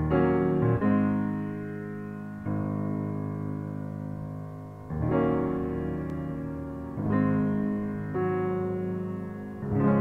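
Piano playing slow, sustained chords, each struck and left to ring and fade before the next, changing every one to two seconds.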